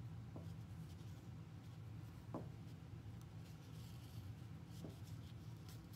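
Faint rustling and a few soft taps from hands working yarn fringe onto a cardboard loom, the clearest tap about two seconds in, over a steady low hum.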